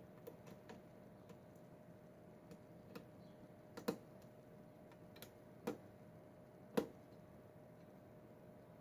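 Faint, irregular clicks and ticks of a lock pick and tension wrench working the pins of a Schlage pin-tumbler lock cylinder, with a few sharper clicks in the second half.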